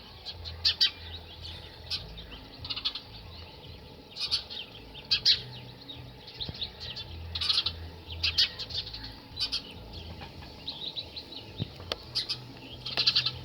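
Male house sparrow chirping: short, sharp chirps repeated in irregular runs throughout.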